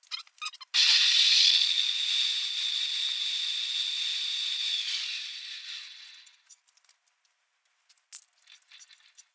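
Metal lathe with a four-jaw chuck starting up under a second in and running with a steady whine and hiss. About five seconds in it is switched off and winds down, its whine dropping in pitch as it fades out.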